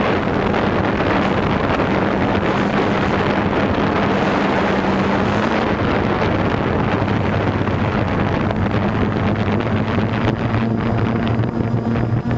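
Quadcopter's motors and propellers buzzing steadily under heavy wind noise on its onboard camera microphone; the hum steps slightly higher in pitch about halfway through.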